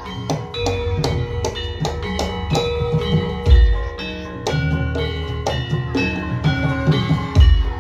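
Javanese gamelan music: struck metallophones ring out over hand-drum beats. A deep gong stroke lands about every four seconds, around halfway through and again near the end.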